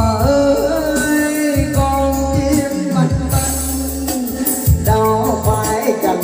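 Karaoke backing music with a melody line over a steady bass, and a man singing into a handheld microphone.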